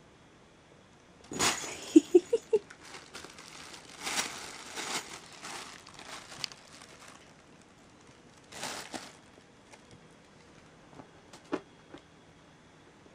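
Thin plastic shopping bag rustling and crinkling as a kitten paws at it and pushes into it, in uneven bursts, with a quick run of sharp crackles about two seconds in and a shorter rustle later.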